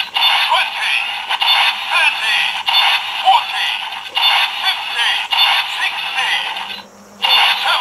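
Bandai DX Hawk Gatlinger toy gun playing its electronic standby music and synthesized counting voice as its drum magazine is turned round and round, with a click about every half second; each turn adds ten to the shot count, which can go up to 100. The sound cuts out briefly near the end and then starts again.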